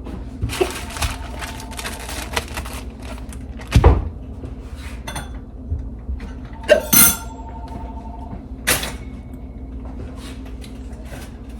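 Kitchen handling sounds: cupboard doors and food-prep items knocked, shifted and set down, a string of knocks and clatters with a heavy thump about four seconds in.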